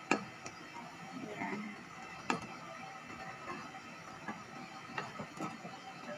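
Flour-thickened gravy simmering in a pan while being stirred, with irregular soft clicks and pops over a low bubbling hiss.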